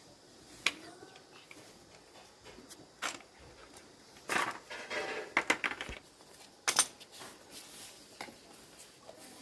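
Small metal objects clinking and knocking: a few separate sharp taps, with a short run of clatter about four to six seconds in.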